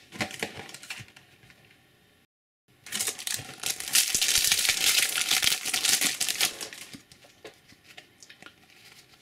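A foil trading-card booster pack crinkling loudly for several seconds as it is torn open, with lighter rustles and clicks of card handling before and after.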